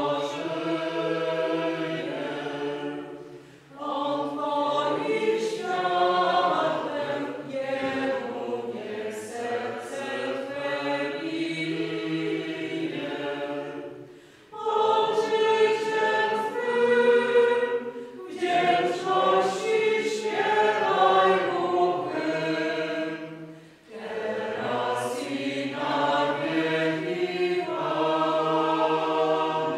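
A choir singing a sacred piece in long phrases, with brief pauses between them about every ten seconds.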